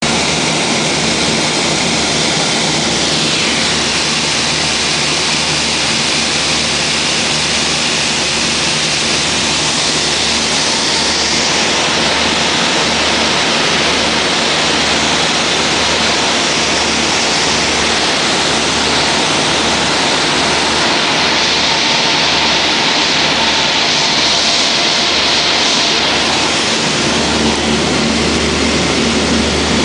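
Cabin noise of a Beechcraft Duchess BE-76 in flight: its two four-cylinder piston engines and propellers running steadily, a loud, even drone and rush with a low hum underneath.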